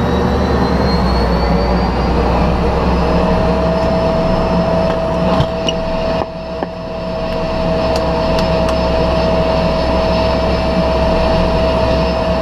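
Cessna 208B Grand Caravan's PT6A turboprop engine spooling up just after light-off: a whine rises in pitch over the first few seconds, then holds as a steady whine over a low drone as the engine settles after the start.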